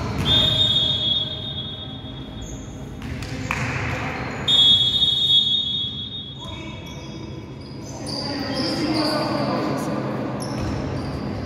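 Referee's whistle blown twice: a blast of about a second, then a longer one of under two seconds about four seconds later.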